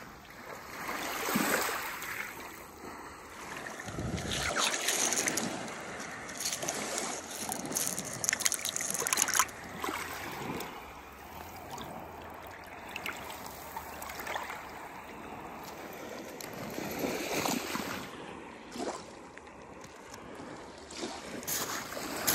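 Small waves washing up and drawing back over a wet pebble beach, swelling and fading every few seconds, with light clicks and splashes among the stones.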